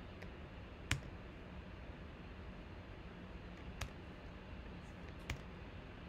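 Sharp single clicks of a computer mouse and keyboard in use while spreadsheet cells are selected and filled in. The loudest comes about a second in and two more near four and five seconds, over a faint steady hum.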